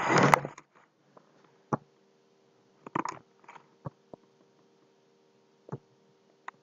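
A short rush of noise at the start, then a few soft, scattered computer-mouse clicks over a faint steady hum.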